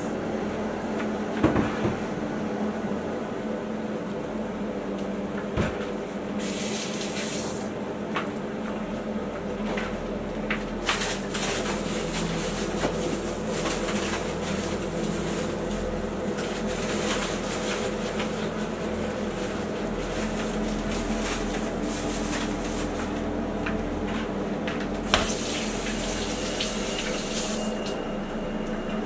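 Water running from a kitchen sink tap in spells, with dishes and utensils knocking against the sink and each other, over a steady low hum.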